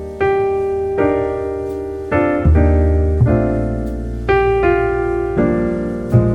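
Instrumental piano music: slow chords struck about once a second, each note ringing and fading, over held bass notes.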